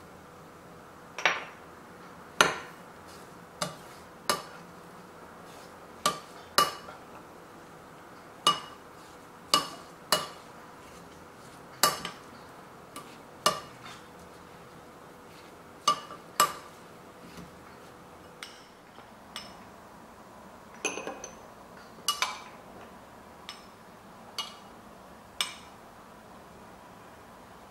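Metal spoon clinking against a glass mixing bowl while stirring a sauce: about twenty sharp clinks at uneven intervals, each ringing briefly.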